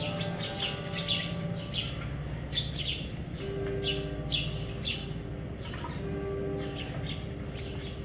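Eurasian tree sparrows chirping: a busy run of short, sharp chirps, often several a second, from a flock feeding together.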